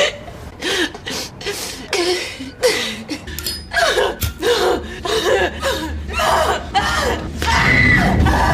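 A woman's short wordless vocal noises (gasps, sighs and exclamations), one after another with abrupt cuts between them, over a low background hum.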